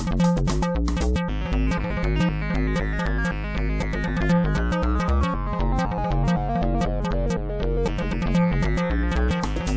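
Background music: a steady beat with a bass line and synthesizer or keyboard notes.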